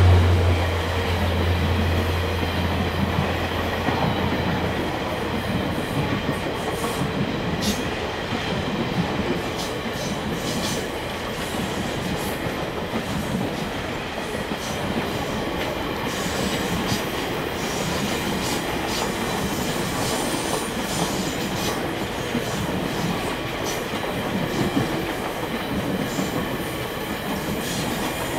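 VIA Rail's The Canadian, its stainless-steel passenger cars rolling past at speed: a steady rumble of steel wheels on rail with scattered clicks over the rail joints. A low engine hum from the locomotives ahead fades away over the first few seconds.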